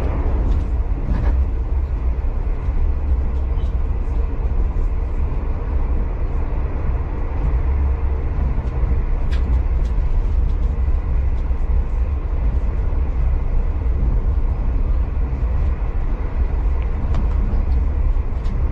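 Passenger train running, heard from inside the carriage: a steady low rumble with a faint even hum and a few light clicks.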